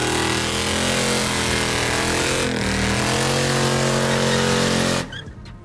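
A car engine running hard at steady high revs, a loud, even drone with a slight dip in pitch midway, which starts and cuts off abruptly.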